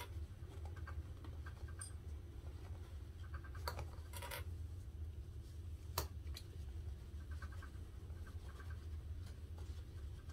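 Hands folding and smoothing a fabric strap around polypropylene webbing on a table, a soft scratchy rustle with a few sharp clicks, the sharpest about six seconds in. A steady low hum runs underneath.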